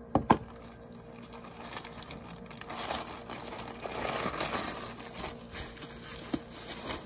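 Plastic poly mailer crinkling and rustling as it is pulled open by hand and its contents drawn out, after a sharp knock just after the start.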